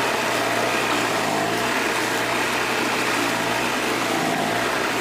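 Small engine-driven cassava grating machine running steadily as peeled cassava is pushed through it: a constant engine drone under a dense grinding noise.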